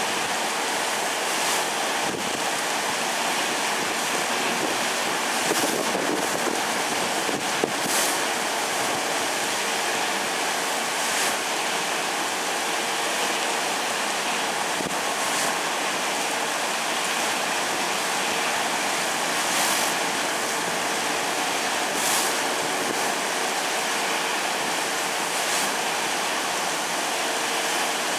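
Automatic train-washing machine spraying water and running its tall rotating brushes along the side of a passing train car: a steady rush of spray with brief louder hisses every few seconds and a faint steady hum underneath.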